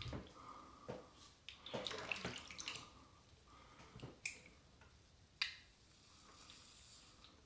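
HeadBlade S4 Moto manual razor scraping over a gel-lathered scalp: short strokes and small clicks, with a quick run of strokes about two seconds in.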